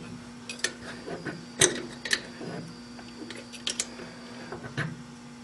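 Irregular light metallic clicks and scrapes as a small steel tool bit pries at the rim of a stainless steel Stirling engine hot cap held fast on a lathe mandrel by vacuum. A steady low hum runs underneath.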